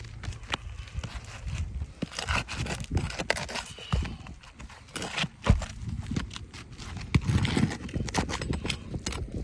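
Roofing pry tool working under 3-tab asphalt shingles to free the shingle and pull its nails: irregular scraping with repeated taps and clicks, and a sharp knock about five and a half seconds in.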